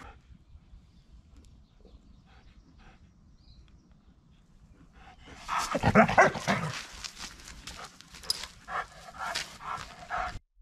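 A dog barking in a loud, rapid outburst that starts about halfway through, after a few seconds of faint sound.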